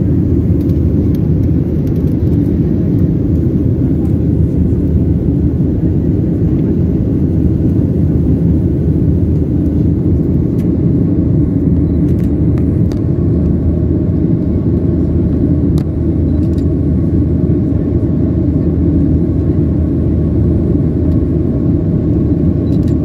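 Steady, loud, deep cabin roar of a jet airliner in flight, the engines and rushing air heard from a window seat.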